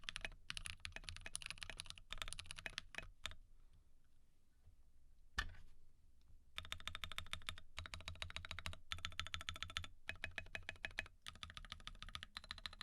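Fast typing on a Glorious GMMK Pro mechanical keyboard with lubed Glorious Panda tactile switches and SA-profile PBT keycaps. Rapid runs of keystrokes stop for about three seconds near the middle, broken by a single loud keystroke, then resume.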